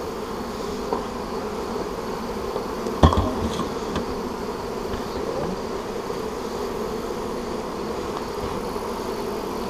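Honey bees buzzing steadily in a dense hum around an open hive, the colony stirred up after being disturbed. A single sharp knock about three seconds in.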